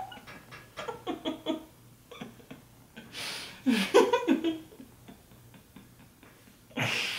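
A woman giggling behind her hand: short runs of high-pitched laughter broken by breathy exhales, with a sharper breathy burst of laughter near the end.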